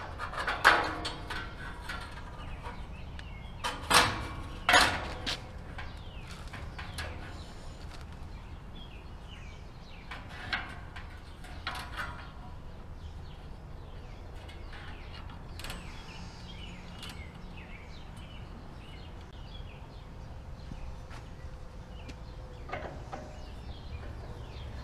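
A few sharp knocks and clanks: the loudest about a second in and two more around four and five seconds, lighter ones near ten and twelve seconds, then a quiet steady background.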